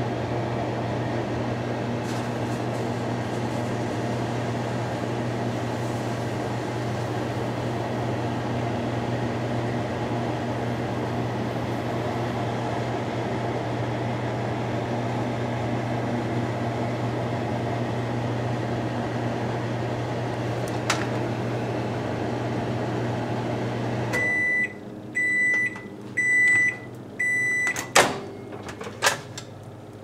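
Microwave oven running with a steady low hum until it shuts off about 24 seconds in, then four high beeps signalling the end of the cooking cycle. Two sharp clicks follow as the oven door is opened.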